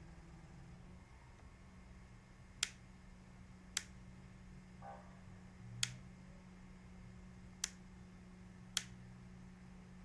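Five sharp single clicks at uneven intervals of about one to two seconds, over a steady low electrical hum.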